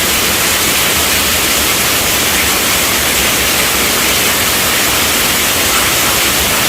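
Steady rainfall, an even hiss with no single drops or changes standing out.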